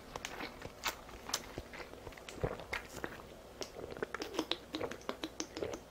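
Close-miked chewing with scattered mouth clicks, then a quicker run of small clicks and gulps in the second half as a drink is swallowed from a plastic bottle.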